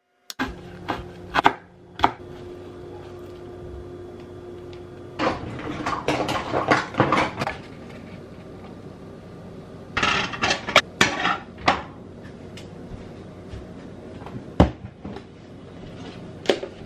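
Bursts of clattering and knocks from cookware being handled and a frying pan set on an electric coil stove, over a steady low hum.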